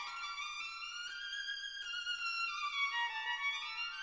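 Background music: a single high melodic line that moves up and down in short steps.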